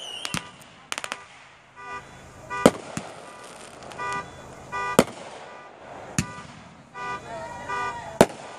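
Fireworks going off with sharp bangs, about six of them spaced a second or more apart, a few in quick succession a second in. Between the bangs come several short horn toots.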